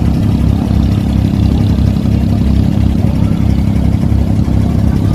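Inboard diesel engine of a wooden abra water taxi running steadily, a loud, even low drone heard from on board while the boat is under way.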